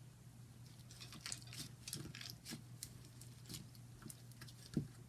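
Faint sticky clicks and squishes of butter slime being stretched and poked by hand, coming irregularly.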